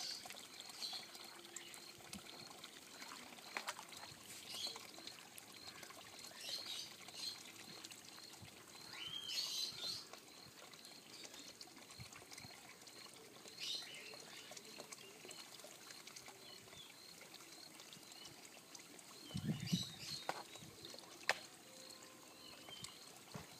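Faint garden ambience with scattered bird chirps every few seconds over a faint, regular high ticking. There are a few low bumps about 19 to 20 seconds in.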